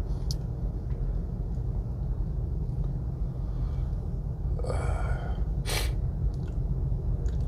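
A sick man makes one short, breathy throat sound about five seconds in, followed by a brief sharp click, over a steady low rumble.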